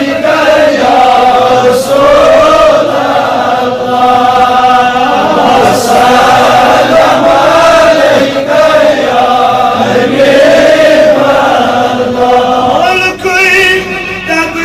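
A solo male voice reciting a naat, a devotional poem in praise of the Prophet Muhammad, chanted in long wavering held notes. Near the end the phrases turn shorter and higher.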